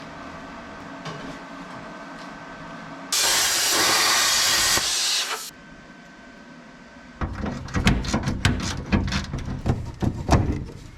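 Plasma cutter torch blowing a loud hiss of air for about two seconds. After a short pause comes a long run of rapid, irregular crackling and knocking.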